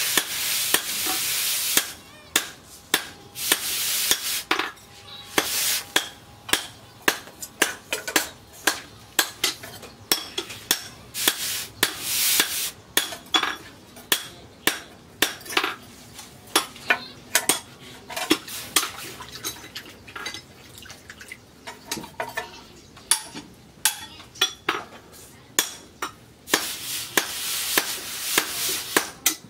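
Hot forged steel katana blade being quenched in a water trough to harden it. The water hisses and sizzles in stretches, loudest at the start and again near the end, amid many sharp metallic clinks as the blade and tongs are stirred through the water.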